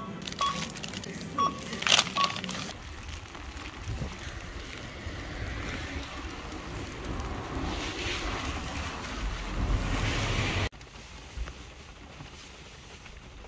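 A supermarket self-checkout scanner beeps four times as items are scanned, with sharp clicks and packaging handling. Then wind buffets the microphone outdoors, building up. Near the end it cuts suddenly to quieter, steady rain on a van's windscreen.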